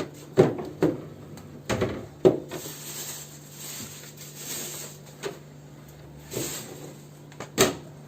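Handling knocks and clicks on a plastic home water-dispenser and its power plug, about seven separate short knocks over a steady low hum.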